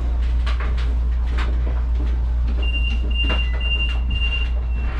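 HermeLijn tram standing at a stop with a steady low hum from its equipment, and clicks and knocks around it. From about halfway through, a high-pitched warning beep sounds in pulses about twice a second, typical of the tram's door-closing warning.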